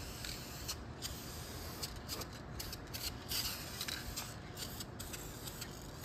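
Aerosol spray-paint can spraying a rear brake backing plate in a series of short hissing bursts.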